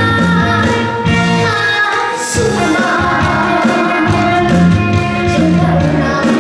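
A boy singing a Korean trot song into a microphone over instrumental accompaniment with a steady, repeating bass pattern.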